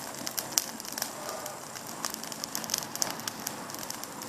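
Large bonfire of dried Christmas trees crackling, with many irregular sharp pops over a steady hiss of burning.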